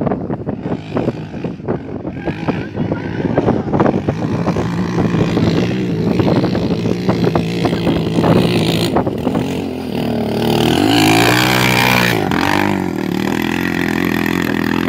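A quad bike's engine revving hard as it climbs a sand dune. Its pitch holds steady for a few seconds, then swings up and down and is loudest about eleven seconds in. Crackling noise fills the first few seconds.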